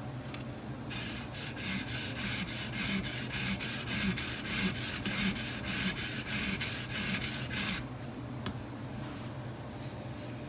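A 220-grit Edge Pro sharpening stone is stroked back and forth along a knife's edge in quick, even scraping strokes. It is grinding down the bevel near the tip to take out a flat spot. The strokes stop about eight seconds in.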